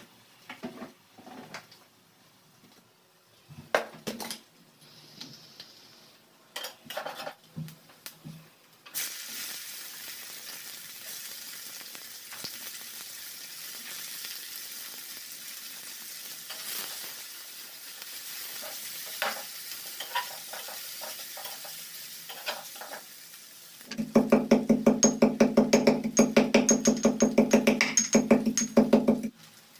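Knife taps on a wooden chopping board, then from about nine seconds the steady sizzle of food frying in a pan. Near the end a small hand-operated steel food chopper runs for about five seconds with a loud, fast, even rattling whirr, the loudest sound here.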